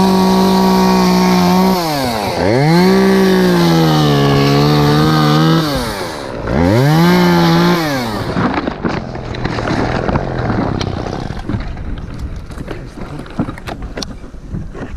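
Husqvarna 338 XPT two-stroke top-handle chainsaw revved to full throttle in three bursts, dropping back between them, its pitch sagging and wavering in the middle burst as it cuts. The engine stops about eight seconds in, leaving scattered crackles and rustling.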